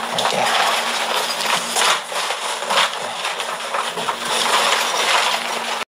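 Rustling and crinkling of bags and packaged items being pushed down into a cardboard box, with many small knocks and clicks. It cuts off suddenly near the end.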